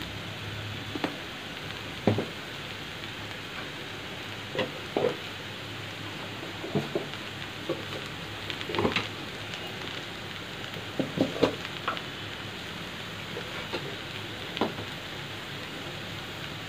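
Shredded cabbage frying in a steel kadai: a steady low sizzle, with scattered small clicks and crackles every second or two.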